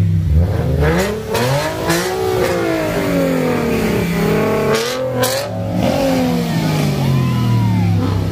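Car engines revving, pitch rising then falling in long sweeps, over the steady drone of other engines running. A few short loud bursts cut through, about a second in and again around five seconds in.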